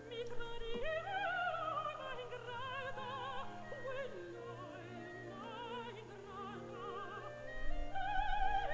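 Background classical music with operatic singing, the voice held on long notes with a wide vibrato.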